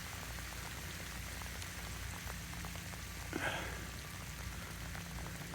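Scattered drips and small ticks of water falling on ice-coated ground and trees during an ice storm, over a steady low hum. A short scuffing sound comes a little past the middle.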